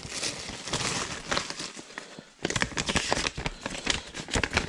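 Packaging rustling and crinkling with small clicks and taps as parts are handled and pulled out of a box, in two spells with a short pause about two seconds in.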